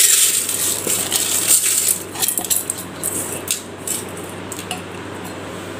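Washed horse gram grains poured and scraped by hand from a steel bowl into a pressure cooker: a loose rattle of many small clicks as the beans hit the metal. It is busiest over the first two seconds and thins out after about four.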